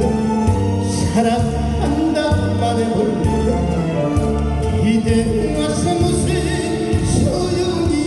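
A male singer singing a Korean trot song live into a microphone over loud accompaniment music with a steady beat. His sung line wavers with vibrato above the bass.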